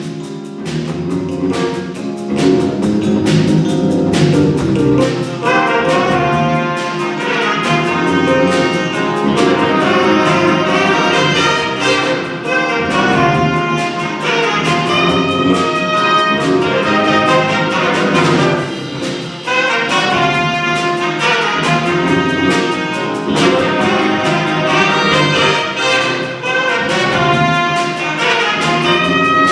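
Jazz big band playing: for the first few seconds it is mostly drums, then the full brass and saxophone section comes in loudly about five seconds in and plays ensemble lines over the rhythm section.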